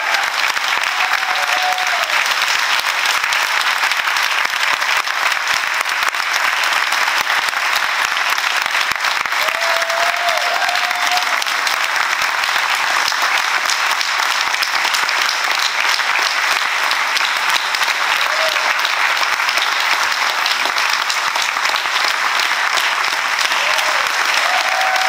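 Audience applauding steadily in a large hall, a dense unbroken clapping, with a few short calls from the crowd now and then above it.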